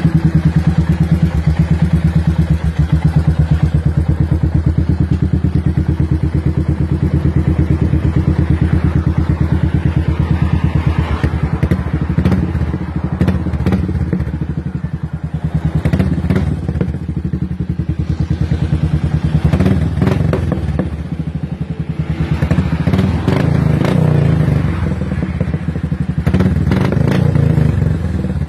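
Royal Enfield Meteor 350's single-cylinder engine running steadily through a newly fitted exhaust pipe, heard close to the exhaust outlet. A low, even firing beat throughout, with some light knocks and crackle in the second half.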